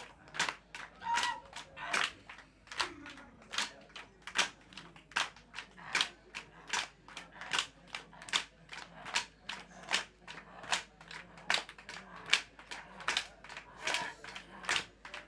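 Rhythmic clapping keeping a steady beat, about two and a half claps a second, from a group gathered round a fire.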